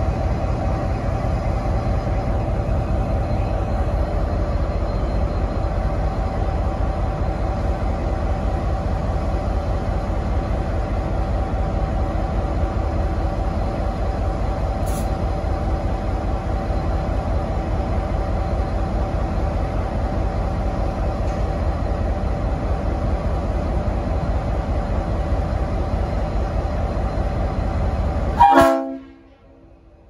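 Diesel-electric locomotive idling: a steady low engine rumble with a hum of several steady tones. Near the end comes one short loud blast, and then the sound drops away abruptly.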